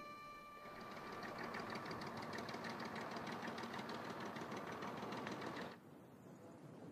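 A fast, even mechanical rattle, made of rapid repeated strokes, starts about half a second in and stops abruptly near the end.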